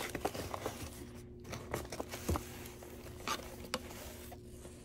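Scattered small clicks, taps and light rustling of paper and plastic packaging being handled, over a faint steady hum.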